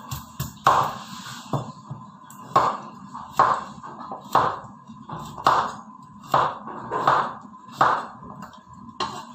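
Cleaver chopping through squash onto a wooden cutting board, about ten sharp chops roughly one a second.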